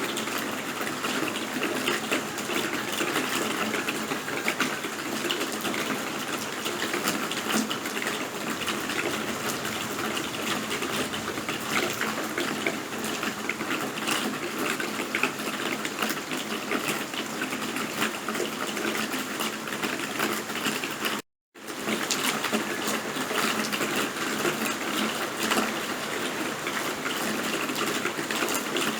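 Steady rain: a dense, even hiss of falling drops with fine pattering clicks. It cuts out to silence for a split second about two-thirds of the way through, then resumes.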